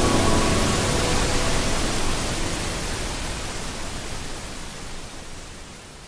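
Waterfall rushing: a steady, even noise of falling water that fades out gradually. The tail of background music dies away in the first moment.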